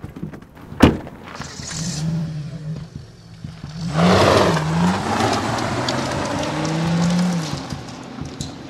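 A car door slams shut, then the car's engine runs and revs with its pitch sliding up and down, surging loudly about four seconds in.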